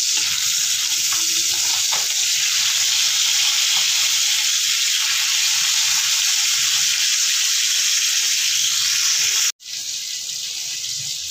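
Climbing perch (koi fish) shallow-frying in hot oil in a wok: a steady, loud sizzle. About nine and a half seconds in, it cuts off abruptly and a quieter, steady hiss follows.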